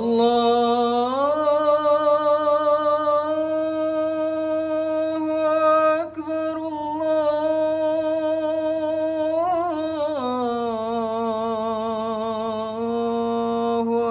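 A young man's voice chanting the adhan (Islamic call to prayer) through a microphone, drawing out one long ornamented note. The pitch rises about a second in, holds with small wavers, and drops back lower about ten seconds in.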